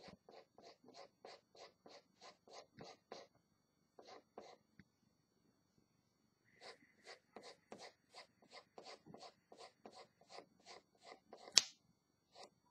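Pencil hatching on drawing paper: quick, even scratching strokes at about four a second, stopping briefly just after three seconds in and again around five to six seconds in. A single sharp click near the end is the loudest sound.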